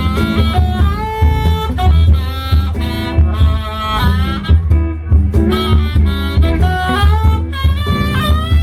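Live blues band playing an instrumental passage: a wind instrument solos with long, bending notes over a steady bass and drum groove.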